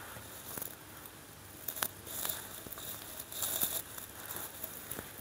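Faint rustling with a few scattered light clicks; the loudest rustling comes in two short spells, about two seconds and three and a half seconds in.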